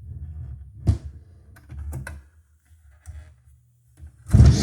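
Clicks and knocks from a record turntable being set going over a low hum, then, near the end, the record suddenly starts playing loudly. It is a 45 rpm single running at 78 rpm, so the music comes out too fast.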